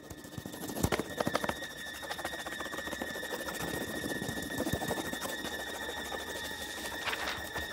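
Crayon scribbling fast and hard back and forth on paper in dense, rapid scratchy strokes, under a steady high-pitched tone.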